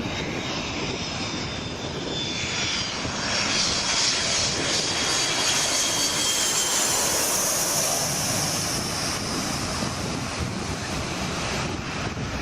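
Fixed-wing airliner passing low overhead: a steady engine roar with a high whine that falls in pitch, swelling to its loudest around the middle and easing a little near the end.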